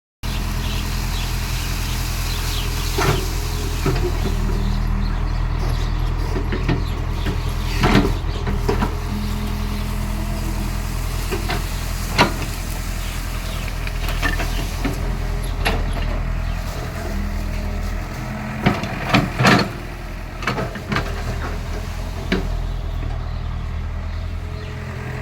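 Excavator's diesel engine running steadily, with scattered sharp knocks and clanks over it. The engine level steps down about 18 seconds in.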